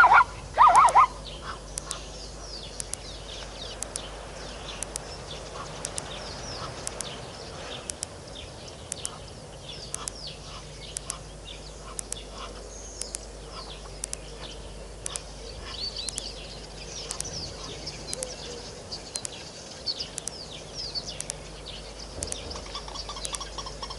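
Wild birds calling: a loud burst of calls in the first second, then many short chirps and a sharp high note repeated about once a second, with a quick run of notes near the end.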